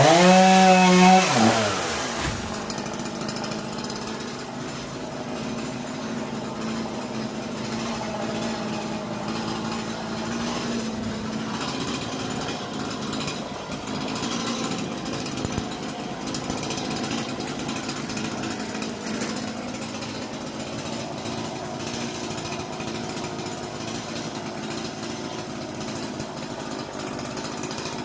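Stihl MS 182 two-stroke chainsaw revved high for about two seconds, then dropping back to run steadily at a lower idle.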